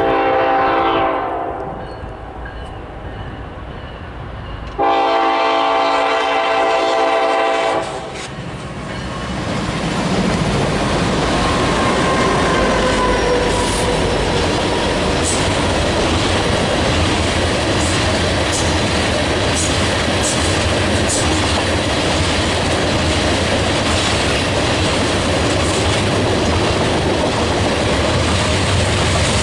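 Locomotive air horn: a blast falling in pitch over the first second or so, then a second steady blast of about three seconds starting around five seconds in. After it, the train's cars roll past with a steady loud rumble and clatter of wheels on the rails.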